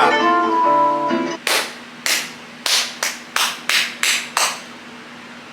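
A guitar-backed pop song plays and cuts off about a second in, followed by about eight sharp hand claps at an uneven pace over the next three seconds.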